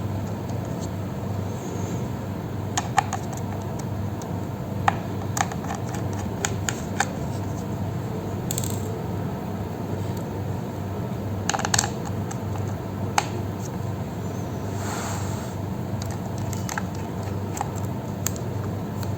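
Scattered sharp clicks and light taps of small tools and parts on a laptop being taken apart, with a couple of brief scrapes, over a steady low hum.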